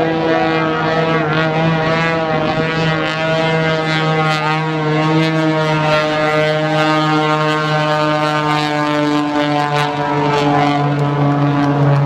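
Pitts aerobatic biplane's piston engine and propeller droning loud and steady through a low aerobatic pass. The pitch bends a little and drops about nine and a half seconds in.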